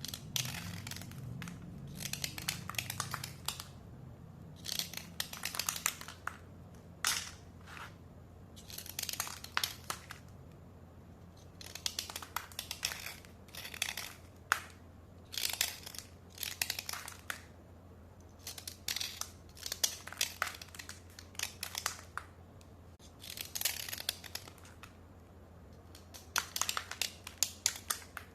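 White slate pencils being dry-scraped, making short gritty scraping strokes in repeated bursts with brief pauses between them.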